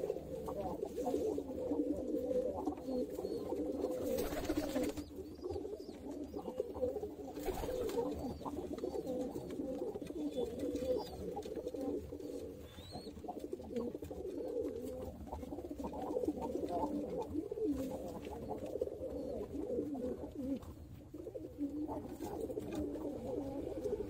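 Domestic pigeons cooing, overlapping low coos without a break, with a brief rustle about four seconds in.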